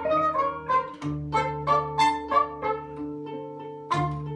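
A live folk-jazz ensemble playing a waltz: plucked zither and electric guitar notes ring and decay over a steady hurdy-gurdy drone.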